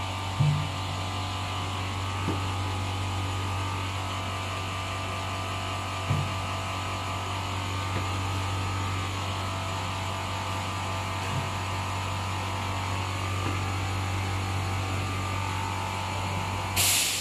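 Granule weighing and powder filling machine line running: a steady electric-motor hum with a few short knocks now and then. Near the end a short loud hiss comes and the hum cuts off.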